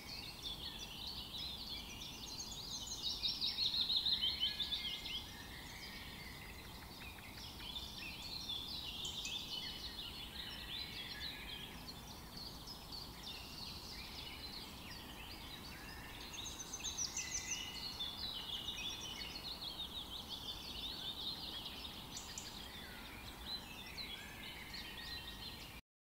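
Birds chirping and twittering in a continuous chorus of short, high calls and quick trills. It swells a little twice and cuts off just before the end.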